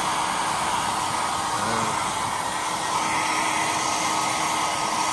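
Ionic hair dryer blowing steadily at close range, an even rushing with a faint steady hum. It is heating a plastic headlight eyebrow trim to soften its bend so it sits flush on the headlight.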